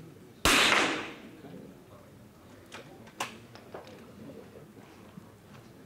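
Two .22 rimfire smallbore target rifle shots in an indoor shooting hall, the first about half a second in and the second at the very end. Each is a sharp crack with a short echoing tail. A few faint clicks come between them.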